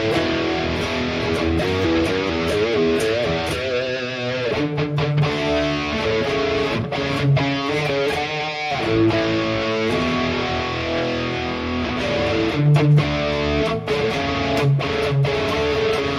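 Electric guitar played through a Headrush Prime modeler's crunch scene, a Diezel VH4 amp clone with a stereo chorus: lightly distorted chords and riffs, the pitch wavering a couple of times.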